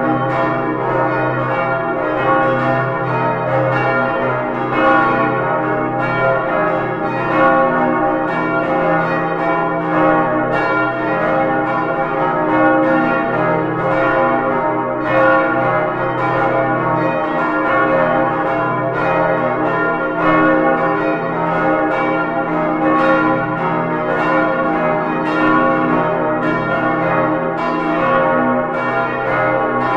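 Full peal of five swinging bronze church bells, cast in 1947 by Albert Junker of Brilon and tuned D♭, E♭, F, A♭, B♭, ringing together. Their strokes overlap without a break over a steady hum, heard close up inside the bell tower.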